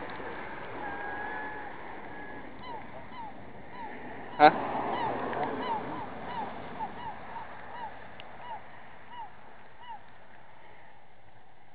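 Gulls calling: a string of short, arched call notes, about two a second, fading out near the end. A single sharp knock stands out about four and a half seconds in.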